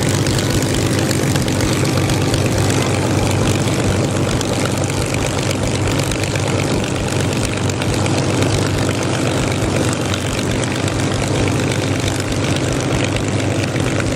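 Aircraft engine noise: a steady, loud drone with a low hum, holding level throughout.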